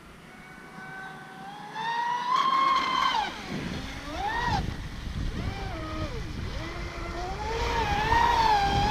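Traxxas Spartan RC speedboat's brushless motor whining, its pitch rising and falling repeatedly as the throttle is worked, with the hiss of the hull running on the water.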